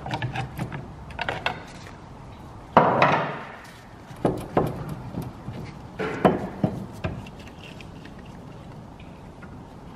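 Mazda MX-5 front brake caliper clunking and knocking against the disc and its mounting as it is wiggled off and handled. The loudest clunk comes about three seconds in, a few more knocks follow over the next few seconds, and then only faint handling remains.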